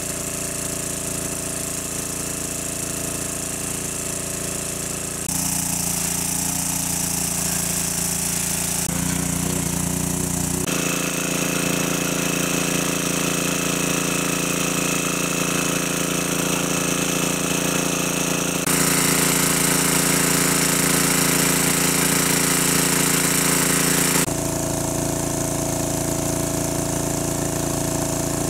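Small engine-driven water pump running steadily. Its tone and loudness change abruptly several times.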